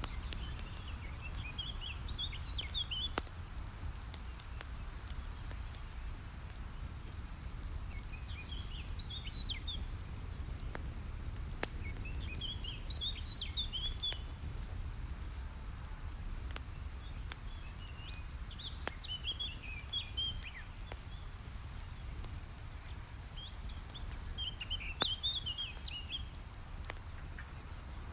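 A songbird sings five short, quick warbling phrases, about one every five seconds, over the scattered small pops of a crackling campfire and a steady low rumble.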